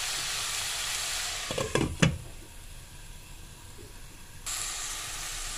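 Chopped onion and chicken sizzling in a stainless steel pan. About one and a half seconds in, a glass lid knocks down onto the pan a few times and the sizzle turns faint beneath it. The sizzle comes back loud about a second before the end.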